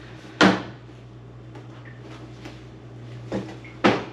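Plastic clips of a dishwasher's outer door panel snapping into the inner door as the panel is pushed home: a sharp snap about half a second in, then a lighter one and another sharp snap near the end.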